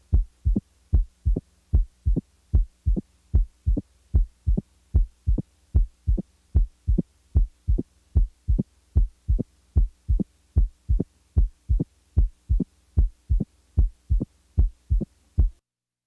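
Heart sounds heard through a stethoscope: a mitral opening snap, a sharp sound just after the second heart sound in each beat, typical of mitral stenosis. The short thuds come evenly, about five every two seconds, over a faint steady hum, and stop shortly before the end.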